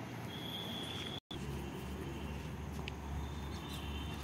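Outdoor background noise with a low hum, a thin high steady tone heard twice, and a brief dropout to silence a little over a second in.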